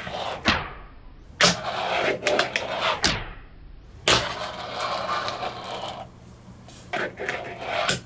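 Fingerboard tricks on a desk: sharp clacks of the board popping and landing about a second and a half in and again around four seconds, each followed by the small wheels rolling on the desktop. A few lighter clicks of the board come near the end.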